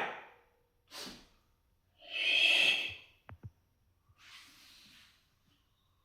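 Sharp, forceful breaths pushed out through the nose and mouth, the way a martial artist breathes with each strike: a short one about a second in and a longer, louder one at about two seconds. Two light taps follow it, and a faint breath comes near the end.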